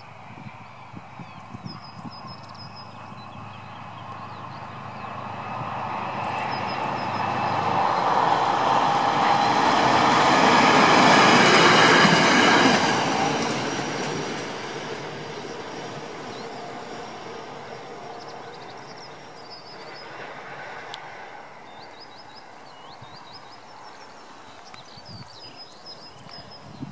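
Plasser & Theurer 09-32 CSM track tamping machine passing along the rails under its own power: the engine and wheel noise grows louder, peaks about twelve seconds in, then fades away. Small birds chirp before and after the pass.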